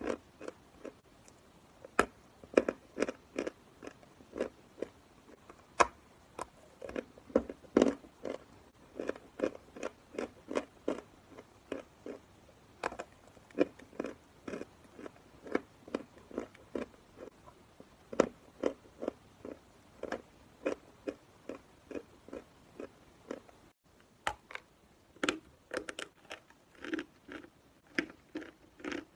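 Dry edible chalk being chewed, a steady run of sharp crunches, two or three a second.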